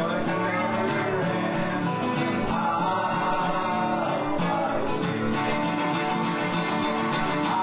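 Music with acoustic guitar.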